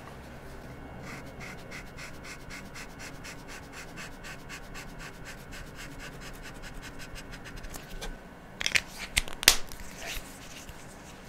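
Chisel-tip highlighter marker scratching on paper in quick back-and-forth colouring strokes, about three or four a second. Near the end come a few louder sharp clicks and knocks as the marker is handled.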